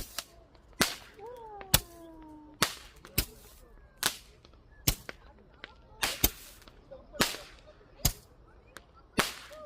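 Fireworks going off: a run of sharp cracking bangs, roughly one a second, each with a short echo. A falling whistle sounds about a second in and another near the end.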